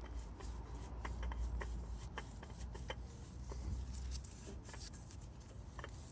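Handling noises: scattered light clicks and rustles over a low rumble.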